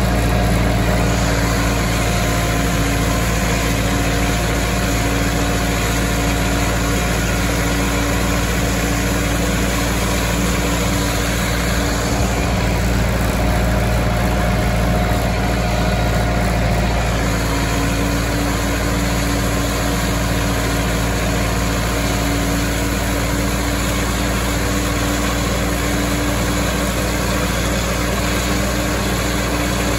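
Tractor engine running steadily, pulling a Vermeer disc mower through a hay field, with a few steady tones over a constant mechanical drone.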